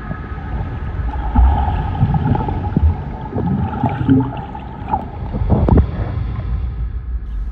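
Muffled underwater rumbling and bubbling as a swimmer in a wetsuit thrashes below the surface, then splashing as she breaks the surface about six seconds in.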